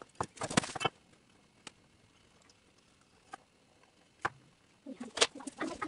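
Light clicks and taps of metal valve covers and a tube of black RTV silicone being handled on a workbench. There is a quick cluster at the start, a few single ticks spaced about a second apart, and a busier run of handling noise near the end.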